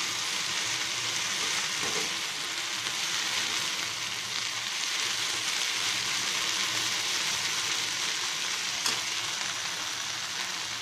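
Mint leaves, coriander, dried red chillies and garlic sizzling steadily in oil in a nonstick pan while being stirred with a metal slotted spoon. The frying is cooking off the water that the leaves still hold.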